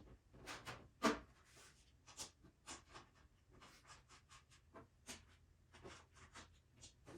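Scattered light knocks, clicks and scrapes of hands handling parts and packing, with a sharper knock about a second in.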